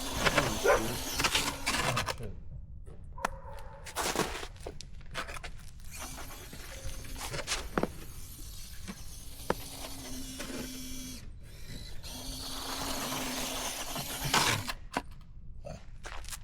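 Electric motor and gear drivetrain of a Redcat Ascent-18 1/18-scale RC rock crawler whining in stretches as it crawls, with a few sharp clicks in between.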